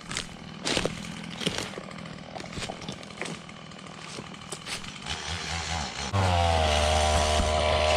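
Chainsaw running some way off, with scattered sharp cracks and snaps. About six seconds in a much louder motor sound comes in, its pitch sliding down and then holding steady.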